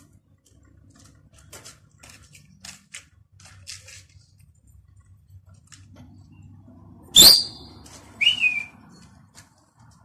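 A person whistling sharply, twice about a second apart. The first whistle sweeps down and holds a high piercing note; the second is shorter and lower, rising then falling. Faint scattered clicks come before them.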